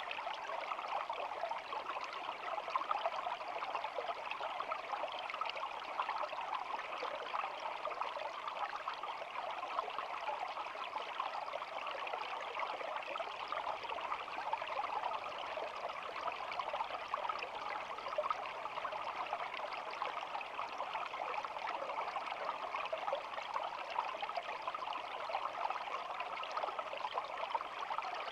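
Shallow stream babbling steadily over stones, an unbroken rush and trickle of flowing water.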